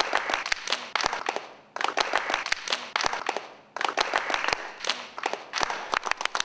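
A small group of people clapping their hands, in three bursts about two seconds apart, each starting suddenly and dying away.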